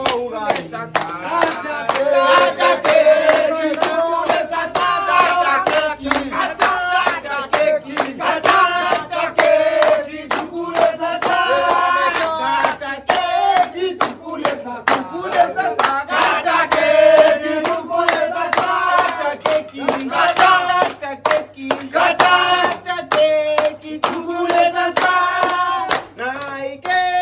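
A group of people singing together and clapping their hands along with the song.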